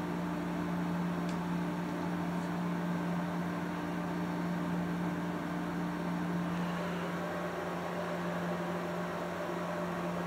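Steady low electrical hum over an even hiss of background noise; a second, higher hum tone fades out about seven seconds in.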